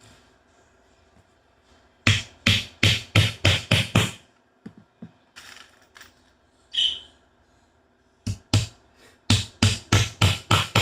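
Hammer driving a nail into soft wood, fastening a small block to the feeder: a quick run of about seven blows, a few lighter taps, then another fast run of blows near the end.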